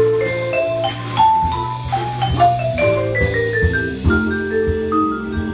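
Jazz vibraphone played with two mallets: quick runs of ringing notes, with a falling run about halfway through, over a drum kit with cymbals.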